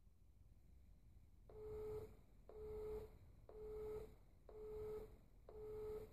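Five short electronic beeps of one steady mid-pitched tone, evenly spaced about one a second, from a smartphone clay-trap release controller system. The beeps are timed with a release on a 4-second delay, after which the target counter goes up by one.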